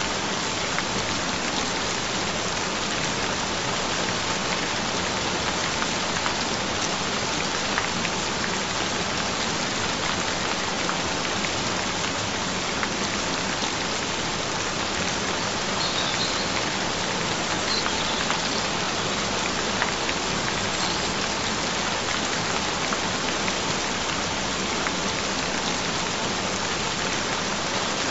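Steady rain falling: an even, unbroken hiss with occasional distinct drops.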